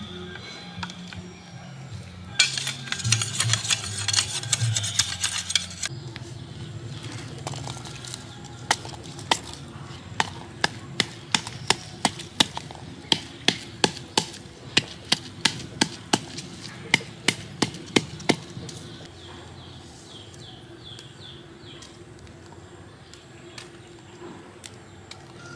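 Wooden pestle pounding garlic in a wooden mortar: a steady run of sharp knocks, about two to three a second, for roughly ten seconds before stopping. Near the start there are a few seconds of dense crackling.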